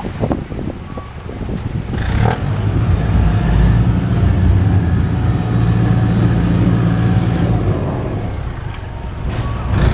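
Ferry's engine picks up about two seconds in to a steady low drone, then eases off near the end. A short knock comes at about the moment the engine picks up.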